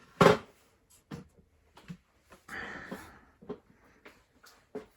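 Handling noises: a sharp knock right at the start, then scattered light clicks and knocks with a short rustle in the middle.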